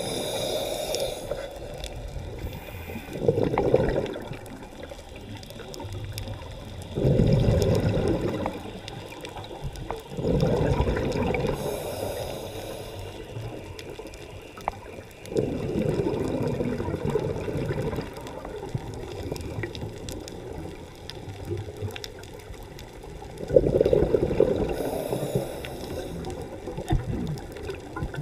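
Scuba regulator breathing heard underwater: rushes of exhaled bubbles every few seconds, with quieter stretches between breaths.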